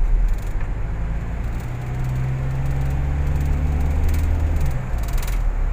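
A car travelling along an elevated expressway: steady road and engine noise, with a low droning hum that comes in about a second and a half in and stops near the end.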